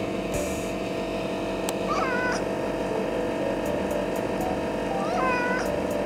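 Orange-and-white cat meowing twice, about three seconds apart: two short calls that each rise and then hold briefly.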